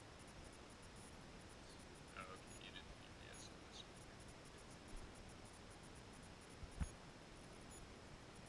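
Near silence: room tone, with a few faint high chirps a couple of seconds in and one soft low knock later on.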